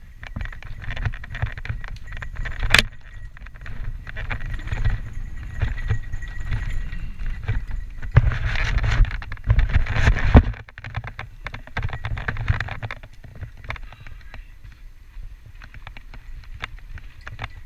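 Santa Cruz Tallboy LTC mountain bike ridden along a dirt singletrack, heard from a helmet camera: wind buffeting the microphone as a constant low rumble, with tyre noise and the bike's steady rattling and clicking. There is a sharp click about three seconds in, and a louder, busier stretch of rumble and rattling from about eight to ten and a half seconds.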